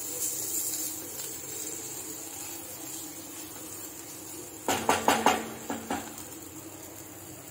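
Wooden spatula stirring a thick masala fry in a nonstick kadai. A little past halfway comes a quick run of about six knocks and scrapes of the spatula against the pan.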